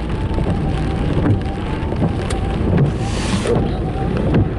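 Steady road and engine rumble heard inside a car driving in the rain, with a brief hiss about three seconds in.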